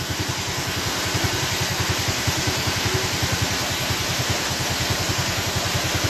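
A vehicle engine idling with a fast, even low throb, over the steady rushing hiss of a small waterfall.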